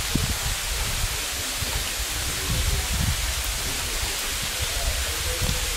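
Wind buffeting the microphone in irregular low rumbles over a steady outdoor hiss.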